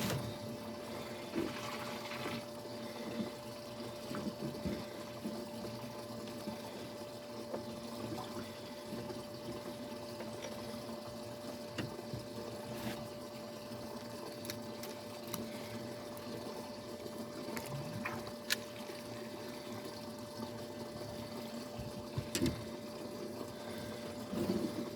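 A steady mechanical hum holding one even tone, with scattered small clicks and knocks over it.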